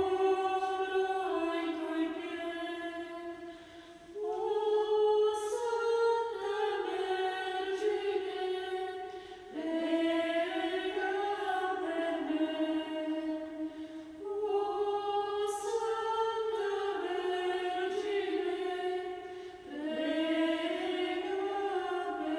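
A choir singing a slow melody, in phrases of about five seconds each with short breaks between them.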